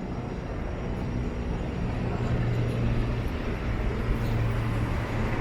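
Downtown street traffic noise, with a motor vehicle's engine hum that grows steadily louder over the last few seconds.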